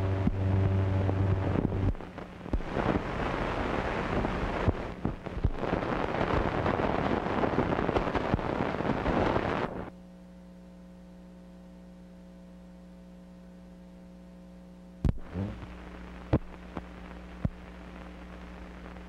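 Soundtrack noise from an old film over black leader: a low buzz for about two seconds, then loud crackling hiss that cuts off suddenly about ten seconds in. What remains is a steady mains hum, with a few sharp pops near the end.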